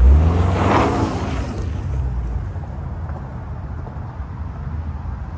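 2023 Subaru Outback's 2.5-litre flat-four boxer engine driving past at close range over loose gravel, its pitch rising as it goes by, with tyre noise loudest about a second in. A low engine drone carries on as the car moves off.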